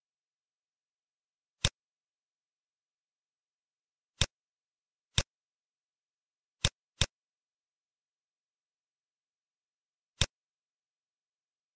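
Computer mouse button clicks: six single sharp clicks, spaced irregularly over several seconds, with two in quick succession about seven seconds in, against dead silence.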